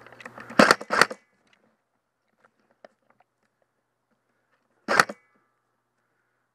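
Airsoft gun firing single shots: two sharp cracks less than half a second apart about half a second in, and one more about five seconds in.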